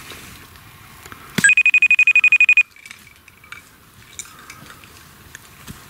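iPhone video call ringing: a rapid trilling electronic ring, about a second long, starting about a second and a half in.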